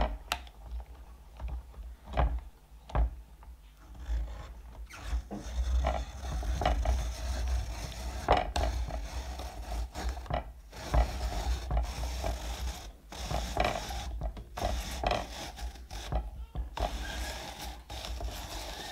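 Hand-cranked apple peeler-corer-slicer being turned. Its blade shaves the skin off an apple in a ribbon while the threaded shaft screws the apple through the corer, making a scraping, rasping rub with irregular mechanical clicks.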